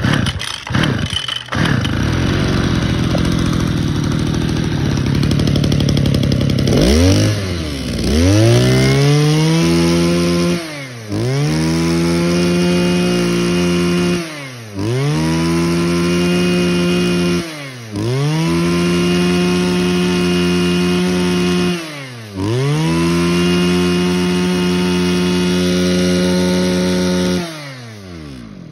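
Mitsubishi TL261 brush cutter's two-stroke engine, pull-started and running at low speed for a few seconds. It is then revved up and let back down to idle about five times, each rev held for three to five seconds.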